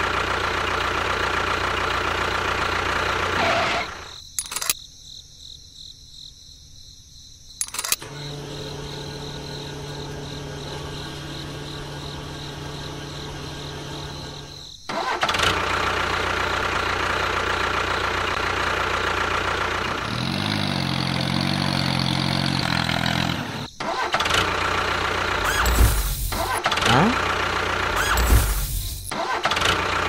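Tractor engine running in several abruptly cut stretches: steady running at first, a quieter stretch with a steady low hum in the middle, then louder running and a few short surges near the end.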